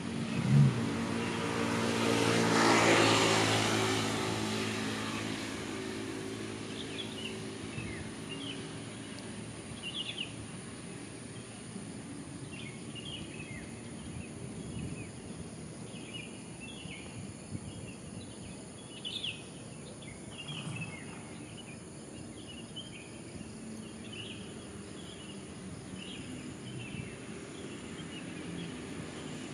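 A motor vehicle passes: its engine hum and tyre noise swell to a peak about three seconds in and then fade. After that, small birds chirp repeatedly over a steady background hum.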